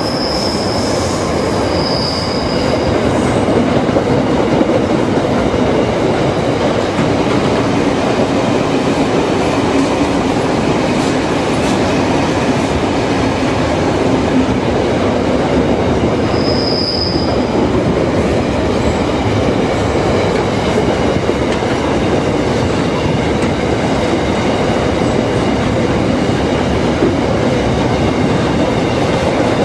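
Container wagons of a freight train rolling past at speed: a steady loud rumble and clatter of steel wheels on rail, with short high-pitched wheel squeals near the start and again about halfway.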